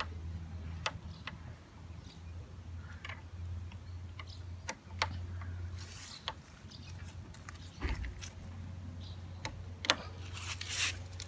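A screwdriver prying an old rubber handlebar grip loose from a motorcycle handlebar: scattered sharp clicks of the tool against the bar, with scraping rubs of the rubber about halfway through and again near the end, over a steady low hum.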